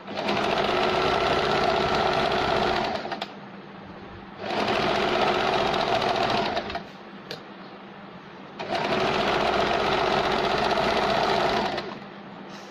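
Sewing machine stitching a zigzag pico (rolled hem) along a saree edge, running in three spells of about two to three seconds each with short pauses between.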